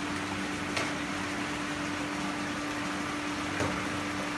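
Steady hum and constant rushing hiss of koi pond equipment running, with two faint ticks.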